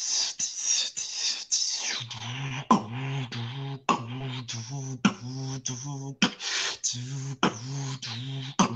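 Beatboxing heard over a webcam video chat. It opens with about two seconds of quick hissing hi-hat sounds, then a hummed bass line runs under sharp percussive strokes in a steady beat, about two a second.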